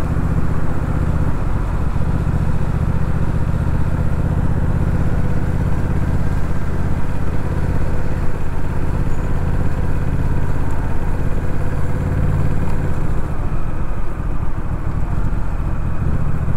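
Honda Rebel 1100's parallel-twin engine running steadily at low speed in slow traffic, with a steady low engine note over road and wind noise. The steady note breaks up about thirteen seconds in.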